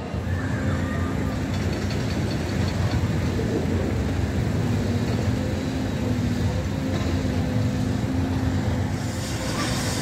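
Heavy construction machinery, the diesel engines of the cranes lifting a steel coaster track section, running with a steady low rumble. A short hiss comes near the end.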